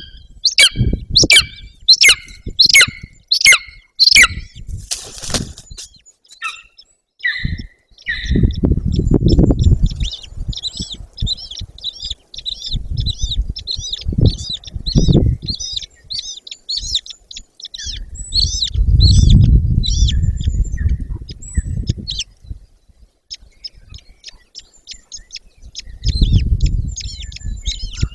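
Golden eagle chicks calling at the nest: a run of loud, high, falling cheeps about two a second for the first few seconds, then a long stretch of quicker, thinner chirps. Low rumbling noise swells and fades several times beneath the calls.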